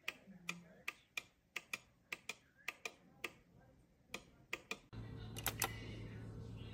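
Irregular sharp clicks, about two or three a second, then a steady low hum comes on about five seconds in.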